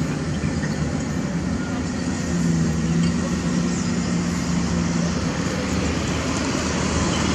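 Diesel engine of a Caterpillar 320D hydraulic excavator running steadily at work, with a low hum that grows a little louder and steadier in tone from about two seconds in until near the end.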